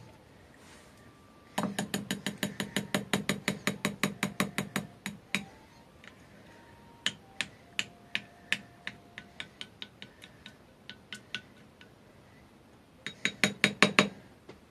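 A spoon clicking against the side of a small ceramic bowl while beating mayonnaise into beaten eggs. It goes in quick runs of about six clicks a second, slows to scattered clicks in the middle, and speeds up to a louder run near the end.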